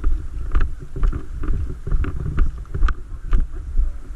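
Footsteps, about two a second, over a steady low rumble of wind buffeting the microphone.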